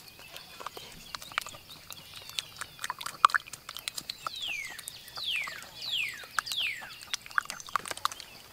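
A bird gives four falling whistled calls in quick succession in the second half, over a scatter of sharp clicks and light sloshing from a green stalk stirring beaten egg in a hollowed gourd.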